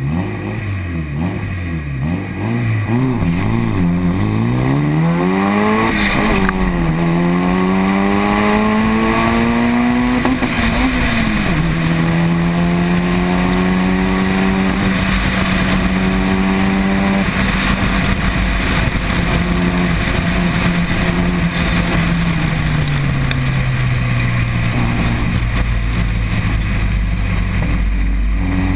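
Toyota MR2 Turbo's turbocharged four-cylinder engine under hard acceleration through the gears. The pitch climbs and drops at upshifts about six and eleven seconds in, holds steady at speed, falls away a little over twenty seconds in, then starts to climb again near the end. Wind and road noise run under it.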